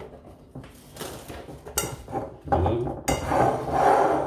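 Cling film pulled from its dispenser box, torn off on the serrated edge and crinkled down over a ceramic bowl, with a couple of sharp snaps and a louder stretch of rustling and scraping in the second half.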